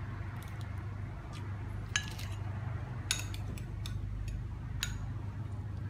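Metal spoon and fork clinking against a ceramic plate and a small sauce bowl: a few light clinks, the sharpest about two, three and five seconds in, over a steady low hum.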